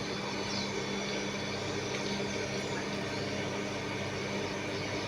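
A steady mechanical hum over an even hiss, holding constant throughout.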